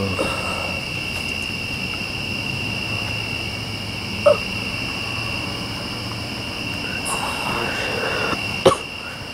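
Steady high-pitched chirring of night insects over a low hum, broken by a brief cough about four seconds in and a sharp click shortly before the end.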